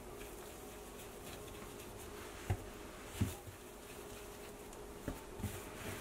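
Hands working soft yeast dough into balls on a floured countertop: faint handling sounds and a few soft thumps, two of them a little past the middle and two lighter ones near the end, as dough is pressed and set down. A faint steady hum runs underneath.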